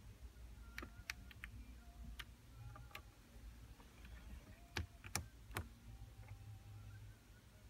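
Faint clicks of the number-keypad buttons on a Mercedes-Benz W211 COMAND head unit being pressed one after another, about nine presses at an uneven pace, the loudest a little before halfway through the second half.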